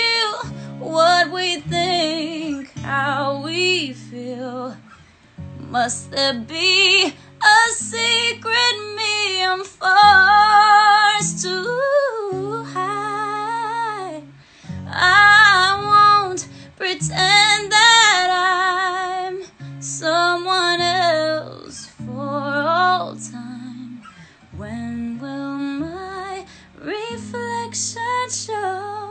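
Woman singing solo with vibrato and vocal runs, accompanied by her own acoustic guitar.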